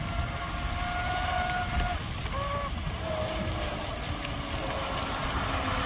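Thin whine of radio-controlled boats' electric motors running across the water, holding one pitch for a couple of seconds, then shifting to others as the boats change speed. Wind rumble on the microphone underneath.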